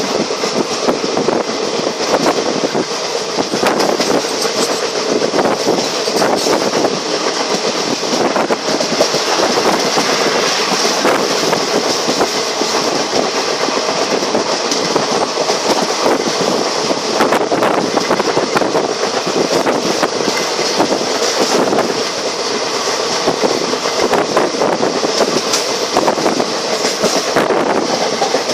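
Passenger train running along the track, heard from aboard: a steady rush of running noise with the wheels clattering irregularly over the rails.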